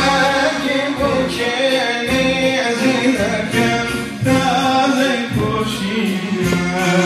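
Live Kurdish music: a man singing over keyboard accompaniment, played through loudspeakers.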